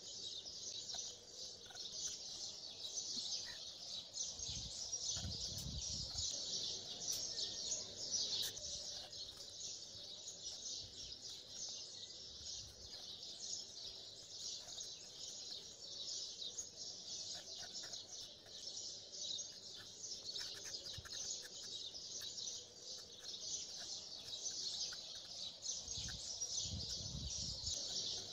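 Dense chorus of many small birds chirping steadily throughout. A brief low rumble comes twice, about five seconds in and near the end.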